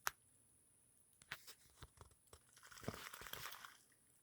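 Faint crunching and rustling of dry leaves and brush, with a few scattered clicks, the rustling swelling a little past the middle.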